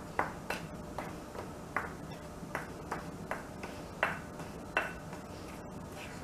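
A spatula stirring a dry flour and cocoa mix in a glass bowl, knocking against the glass in a steady run of light clinks, about two to three a second, each ringing briefly.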